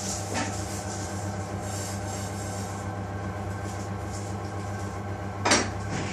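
Steady low mechanical hum of a kitchen's background machinery, with a short sharp knock about five and a half seconds in.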